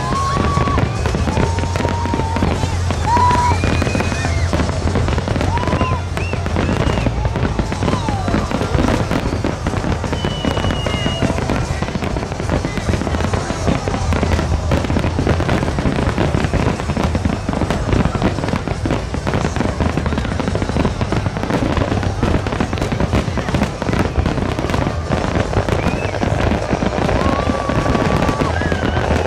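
Fireworks finale barrage: many aerial shells and low-fired fan effects going off together in a dense, continuous crackle of rapid bangs. The loudness stays steady the whole way through.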